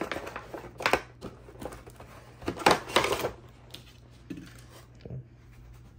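Cardboard box and plastic packaging being handled while a plastic display base is pulled out: a few rustling, clattering bursts, the loudest cluster about halfway through, then smaller knocks.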